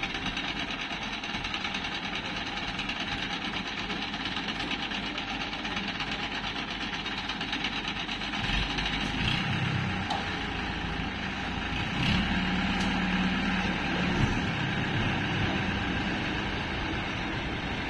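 Diesel engine of an Ace mobile crane running steadily, its note rising and growing louder twice, about eight seconds in and again around twelve seconds in, as it hoists a heavy tank off the ground.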